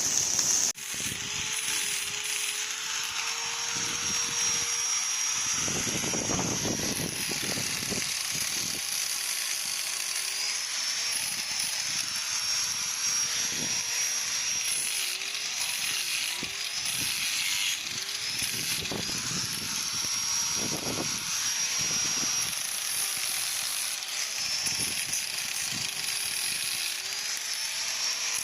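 A steady machine drone whose pitch dips briefly now and then, over a constant hiss, with short patches of rougher noise.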